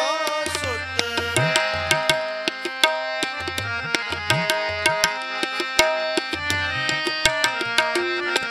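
Tabla and harmonium playing an instrumental passage between sung lines of Gurbani kirtan. The tabla keeps a steady rhythm of sharp strokes, with low bass-drum strokes that slide up in pitch, under the harmonium's held chords.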